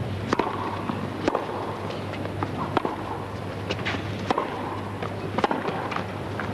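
Tennis rally on a hard court: sharp racket strikes on the ball, with a few bounces, about once a second, from the serve onwards. A steady low hum and a faint crowd murmur run underneath.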